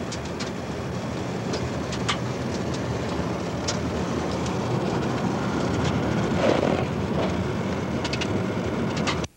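Road noise inside a moving car's cabin: a steady rumble of engine and tyres on the road, with scattered light clicks and rattles. It cuts off abruptly near the end.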